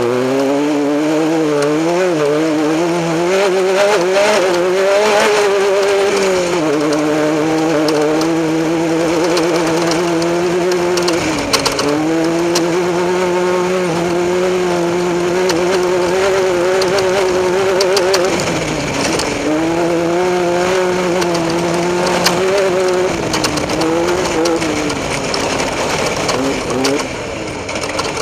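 Off-road race vehicle's engine running hard at speed. Its pitch climbs at the start, then wavers and holds, dipping briefly twice as the throttle is lifted and reapplied. A steady hiss with scattered clicks lies over it.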